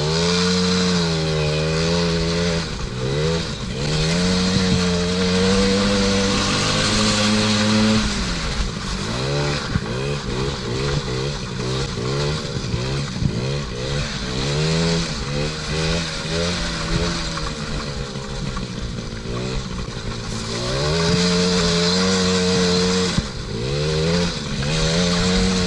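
Small 50cc two-stroke ATV engine revving and dropping back over and over as it is ridden: held at high revs for a few seconds near the start and again near the end, with quick bursts of throttle in between.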